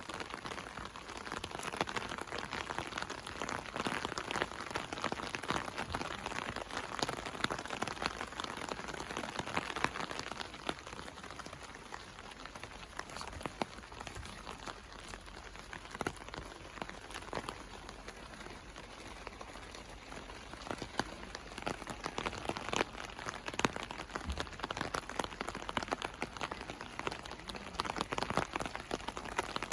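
Steady rain falling, with many separate drop hits heard through the hiss. It eases a little midway and picks up again near the end.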